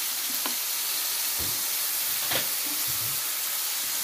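Strips of liver sizzling in hot oil in a frying pan, a steady hiss, with a few knocks at about a second and a half, two and a quarter and three seconds in.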